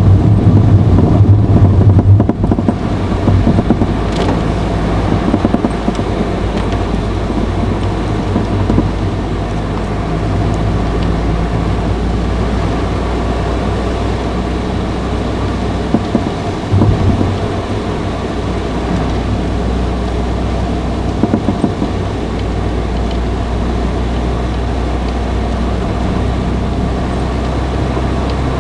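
Honda Fit (GE8) running, with a steady low hum and a few brief knocks about 4, 17 and 21 seconds in. It is recorded to capture an abnormal noise the car makes, though which sound is the fault is not clear. The hum is louder for the first two seconds.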